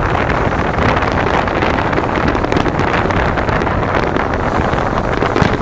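A fireworks barrage: many aerial shell bursts and crackles in quick succession, merging into a continuous rumble.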